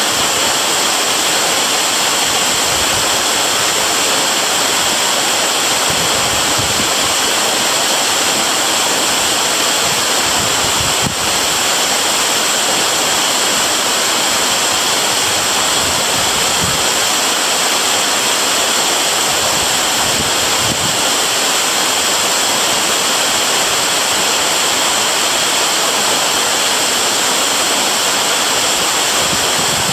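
Waterfall: water pouring and splashing in a loud, steady rush, heaviest in the high, hissing range.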